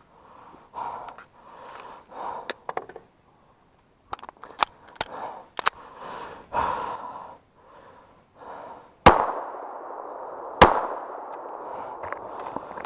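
Two pistol shots about a second and a half apart, each followed by a lingering ring, after several seconds of heavy rhythmic breathing and a few sharp clicks.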